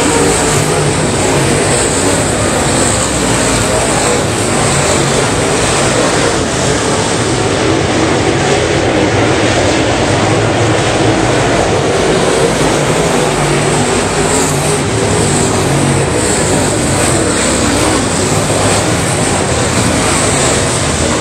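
Topless dirt late model race cars running on the track, several engines blending into one steady, loud drone.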